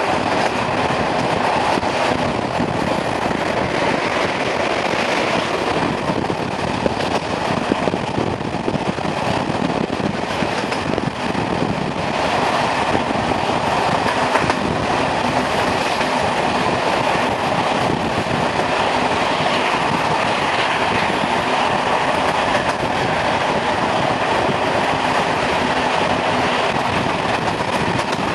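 ČSD class 498.1 'Albatros' three-cylinder steam locomotive running with its train, a loud steady mix of working engine and wheels on rail.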